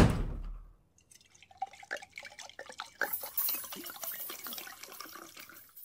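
A door slamming shut, the loudest sound, dying away within a second. Then a run of small, irregular clicks and ticks, joined by a hiss about three seconds in.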